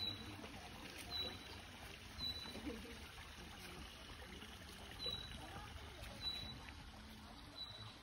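A small bird repeating a short high note, six times with a pause in the middle, over a faint steady trickle of water from a small garden waterfall.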